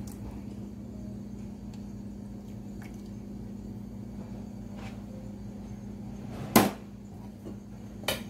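Steady low hum with a few faint taps, then a sharp knock of a kitchen utensil being put down about six and a half seconds in, and another short knock near the end.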